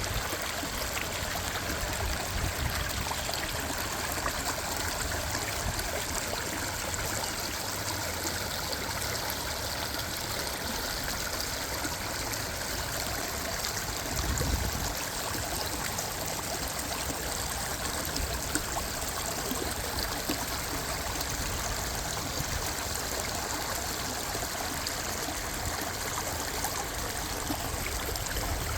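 Minnehaha Creek flowing and trickling: a steady rush of moving water, with a brief low rumble about halfway through.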